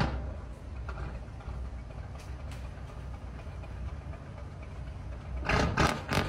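Nissan V10 diesel engine of a fishing boat running steadily at a low rumble. Near the end a quick series of louder sharp bursts rises over it.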